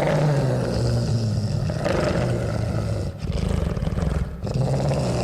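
Monster creature sound effect: a deep, rough, grating growl that starts abruptly and breaks off briefly twice before carrying on.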